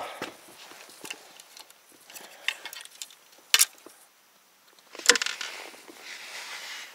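Fishing gear being handled in an inflatable boat: scattered clicks and knocks, two of them louder, about three and a half and five seconds in, then a soft rustle as a hand rummages in a fabric bag near the end.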